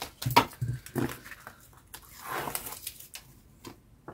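A dog making short whimpering sounds: a few quick ones in the first second, then a longer one about two seconds in.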